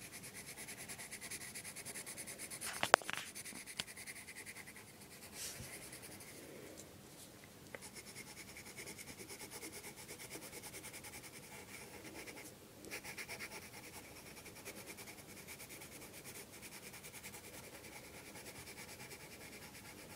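Pencil scratching on paper in quick back-and-forth shading strokes, colouring in the iris of a drawn eye. A sharp tap stands out about three seconds in.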